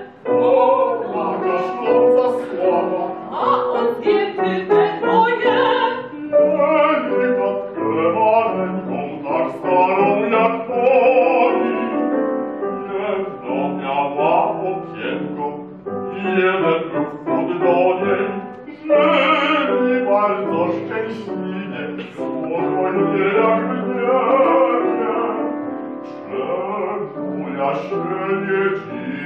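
Soprano and bass-baritone singing an operatic duet with grand piano accompaniment.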